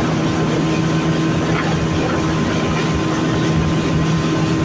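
Speedboat's outboard motor running steadily at speed: an even hum over the rush of water.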